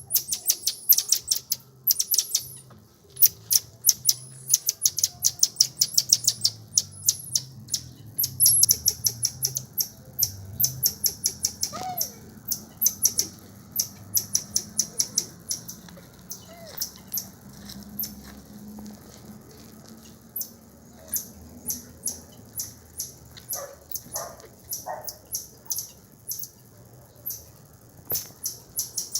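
Birds chirping: a fast series of short, high-pitched chirps. They come thick and fast for the first half, then thin out to a few chirps a second.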